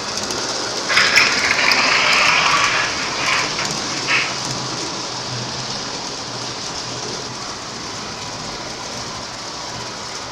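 Lionel O-gauge model subway train rolling on three-rail track, a steady hissing rumble of wheels on rail. About a second in, a louder hiss swells for about two seconds, then fades back into the running noise.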